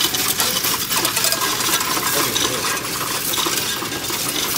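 A heap of loose coins, mostly pennies, clattering in a Coinstar coin-counting machine's tray as hands push them into the intake to be counted. It is a dense, unbroken jingle of many small metal ticks.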